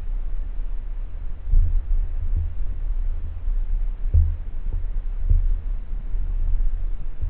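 Low underwater rumble picked up by a camera in a waterproof housing mounted on a speargun, with a few irregular dull thumps as the gun and housing move through the water.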